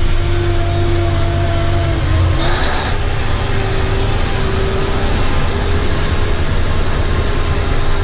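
Komatsu HD605 mining haul truck's diesel engine running as the truck turns, heard from inside the cab: a steady heavy rumble with a whining tone. About two and a half seconds in a short hiss sounds and the whine steps up slightly.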